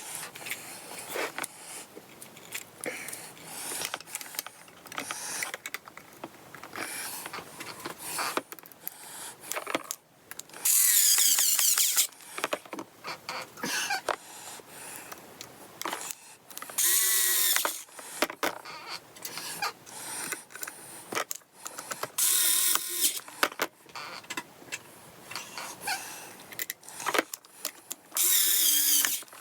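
Cordless electric screwdriver whirring in four short runs, about a second each, as the guitar pedal is screwed back together, with small clicks and handling knocks in between.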